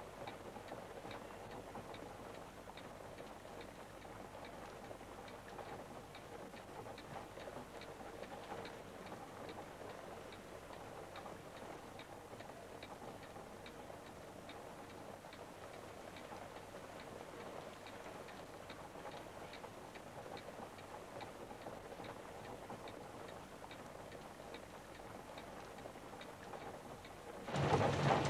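Clock ticking steadily in a quiet room, over faint hiss. Near the end heavy rain cuts in suddenly and loudly.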